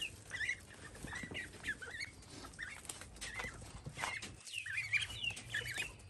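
Poultry and other birds in the shed calling: a scatter of short, high chirps and clucks with no steady pattern.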